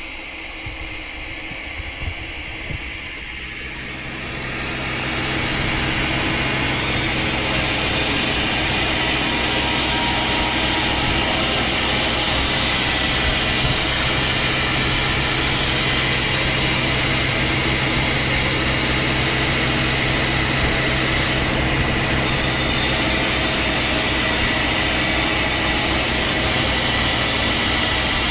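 Engine-powered saw sawing large timber, running with a steady low drone and a wide rasping noise, growing louder about four to six seconds in and then holding steady.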